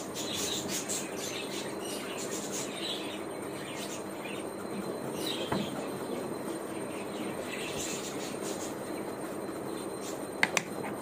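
Birds chirping now and then over a steady room hum, with two sharp clicks about ten and a half seconds in.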